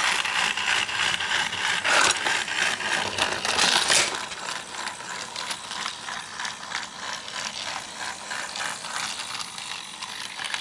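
Battery-powered TrackMaster Thomas toy engine running on plastic track, its geared motor making a rapid clicking rattle. Louder for the first few seconds, then quieter.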